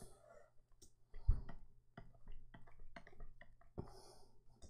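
Computer mouse and keyboard clicking in an irregular string of light clicks while retouching with the healing brush, with one louder dull knock about a second in.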